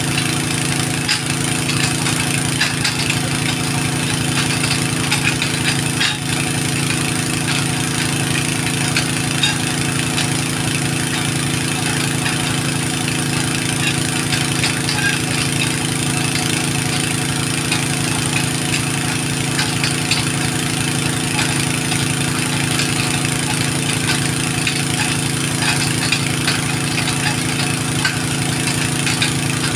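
An engine idling steadily at an unchanging pitch.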